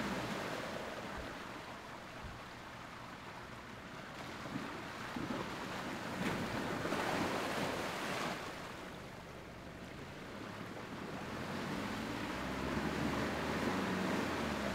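Off-road 4x4's engine running while it churns through a mud pool, with muddy water splashing and washing in swells.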